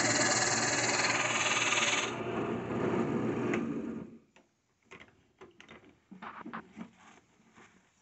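Drill press running with its bit boring into a turned cedar piece, a steady machine hum with cutting noise. About two seconds in the cutting noise drops off, the machine sound fades out by about four seconds in, and scattered light taps and clicks follow.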